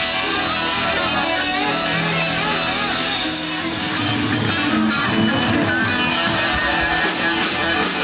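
Live country band playing an instrumental passage: electric guitar lines over bass and drums, with no singing.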